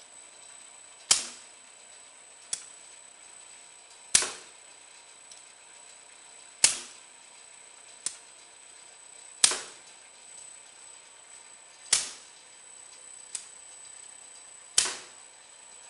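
Mouse trap glue board making machine cycling: a sharp mechanical clack about every two and a half to three seconds, with a lighter click between some of them, over a faint steady high whine.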